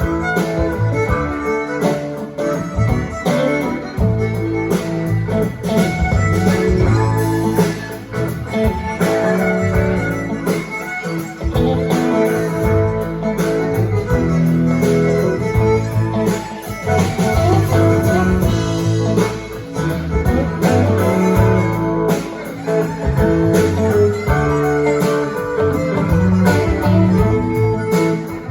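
Live music on string instruments: a strummed guitar with a fiddle-like bowed line, playing continuously with a steady beat.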